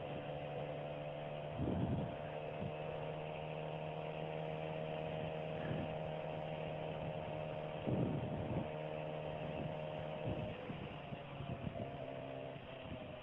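Suzuki motorcycle riding at a steady cruise, engine hum and wind heard thin and muffled through a helmet Bluetooth headset microphone. There are a few brief swells of noise, and it grows quieter near the end.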